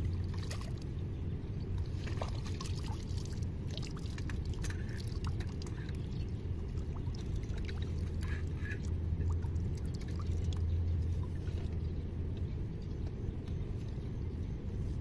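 Steady low rumble of flowing water, with scattered small splashes and clicks as a hooked crucian carp is played to the bank and scooped up in a landing net.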